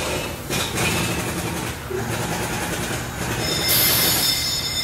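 Repair-shop background noise: a steady rumbling clatter with faint high-pitched whines, and a short loud hiss about four seconds in.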